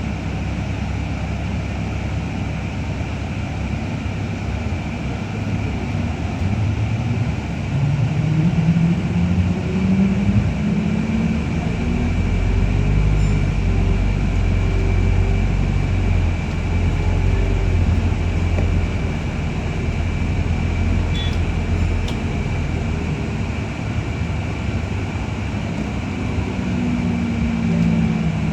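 Interior noise of a New Routemaster hybrid bus (GAL LT406) heard from the rear of the upper deck: the diesel engine and drivetrain drone rises in pitch as the bus gathers speed, then settles into a heavy low drone, with another rise near the end. A steady high whine runs underneath.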